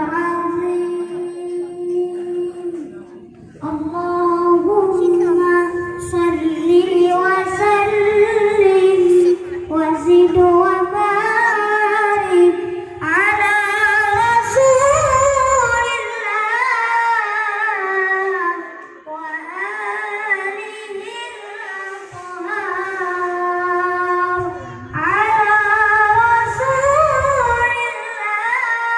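A boy reciting the Qur'an in the melodic qira'ah style into a microphone, amplified through a PA system: long, ornamented phrases in a high voice, broken by short pauses for breath.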